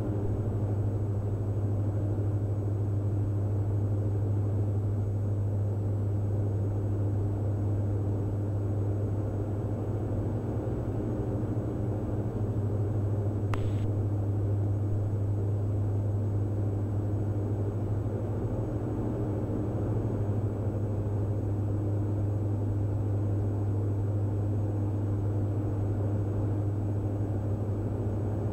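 Steady cabin drone of a Diamond DA42 NG's twin diesel engines, Austro AE300s running on Jet A, and their propellers in level flight: an even, low hum that holds constant. A single faint click comes about halfway through.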